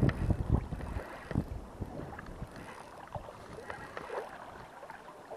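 Small irregular water splashes and lapping at the surface, with some wind on the microphone.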